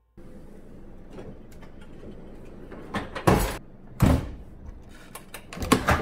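GE dishwasher door being handled: scattered clicks and knocks, with two loud short thuds about three and four seconds in and a cluster of knocks near the end.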